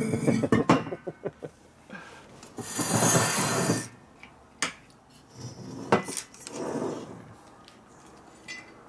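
Heavy metal engine parts, a used aircraft engine cylinder among them, being handled on a steel workbench: a cluster of clinks and knocks at the start, a swish of about a second a few seconds in, then two single sharp clicks.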